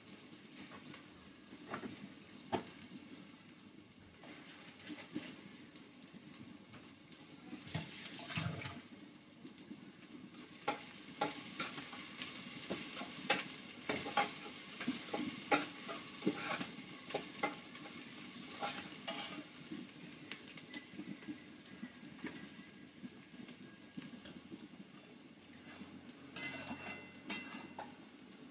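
Sliced onions frying in oil in a steel pot, sizzling, while a spatula stirs them and clicks and scrapes against the pot. The stirring clicks are busiest through the middle.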